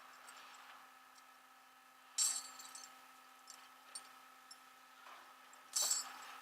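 Two sharp clinks, about three and a half seconds apart, with a few faint ticks between them, over a steady low hum.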